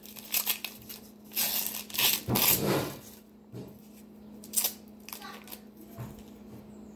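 Paper wrapper of an ice cream sandwich rustling and tearing as it is peeled off by hand, in several short bursts, loudest about two to three seconds in, over a faint steady hum.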